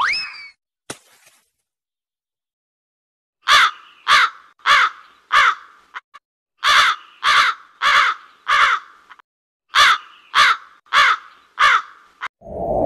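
Crow cawing in three runs of four harsh caws, with a short pause between runs. A brief rising whistle and a faint tap come first.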